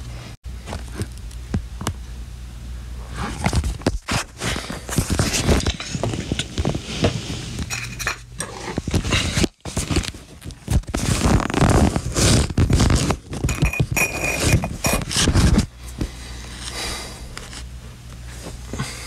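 Scraping, rustling and knocking handling noise, dense and loudest in the middle, with a steady low hum at the start and again near the end.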